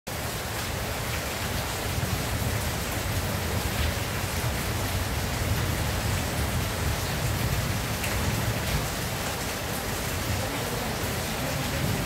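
Steady rain falling on a corrugated tin roof: a constant hiss with a low drumming underneath and a few sharper drop ticks.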